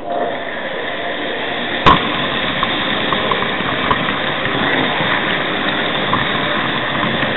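H0 model train running on its track, picked up by a camera riding on a wagon of the train: a steady mechanical running noise from the wheels and the locomotive's motor that picks up as the train sets off, with scattered small clicks and one sharp knock about two seconds in.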